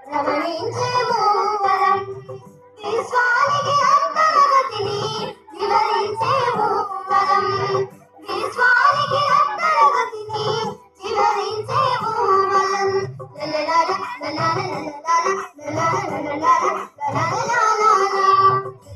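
Telugu children's dance song: a child's voice singing over music with a low, pulsing beat, in phrases broken by short pauses.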